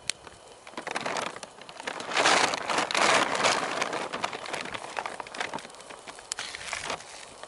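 Split-wood campfire crackling and popping, with a louder rustling, crunching stretch about two to three and a half seconds in as wood is handled at the fire.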